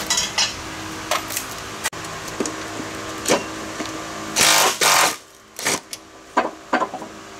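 Makita cordless impact driver run in short bursts, hammering out the bolts that hold a mower deck spindle; the two longest bursts come about four and a half seconds in.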